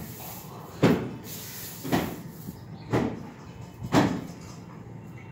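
A stiff-bristled stick broom swept across a rough concrete floor in short strokes, about one swish a second, four in all.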